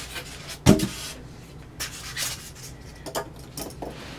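Hands rubbing and shifting a sewing machine and its packaging: a series of short scraping, rubbing strokes, with one sharper knock less than a second in.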